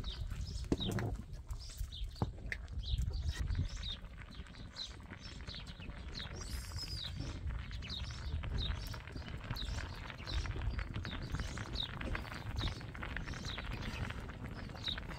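A small bird chirping over and over, short falling notes about once or twice a second, with scattered light clicks and a steady low rumble underneath.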